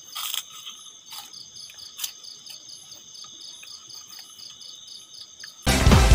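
Crickets chirping steadily in a high, pulsing chorus, with a few faint clicks. Near the end loud music cuts in suddenly.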